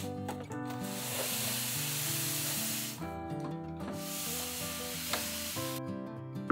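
De'Longhi bean-to-cup espresso machine hissing in two long bursts of about two seconds each, with a short break between them.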